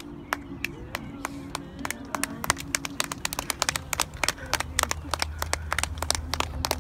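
A small group of people clapping: a few scattered claps at first, growing into quick, uneven applause about two seconds in.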